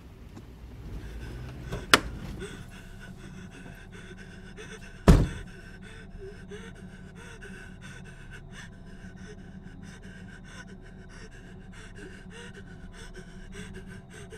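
A young man panting rapidly and gasping, over a steady low hum. A sharp click comes about two seconds in and a heavy thud about five seconds in.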